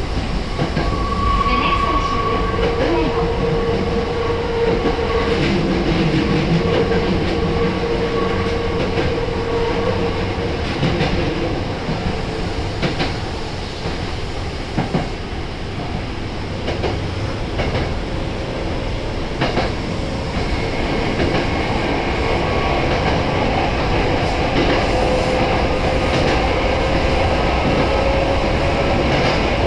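Nose Electric Railway 1700 series electric train running, heard from inside the front car: steady running noise with a few clacks over rail joints and a whine, which slowly rises in pitch near the end.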